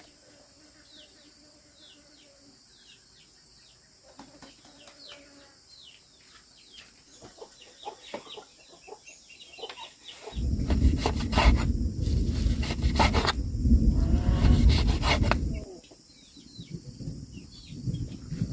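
Baby chicks peeping repeatedly in short falling cheeps. A loud, rough rubbing noise starts about ten seconds in and lasts roughly five seconds.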